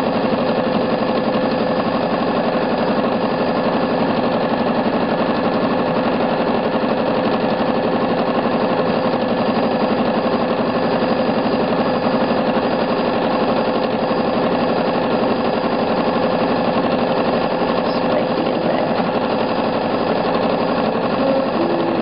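Elna 6600 sewing machine running steadily at speed, its needle stitching rapidly and evenly through a quilt during free-motion quilting.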